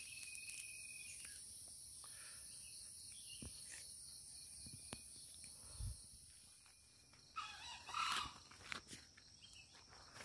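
Steady high-pitched drone of insects in the undergrowth, with a few louder rustles about eight seconds in.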